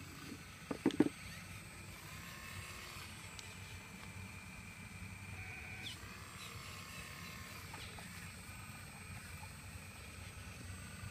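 An engine running steadily at a low level, with a quick cluster of three or four sharp knocks about a second in.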